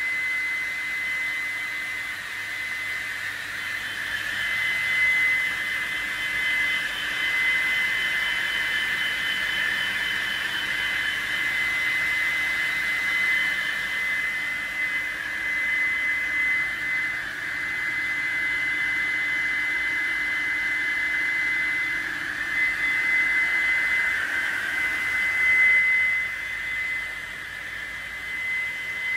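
Granite stone cutting and moulding-routing machine running, a steady high whine over a rushing hiss, its loudness swelling and dipping.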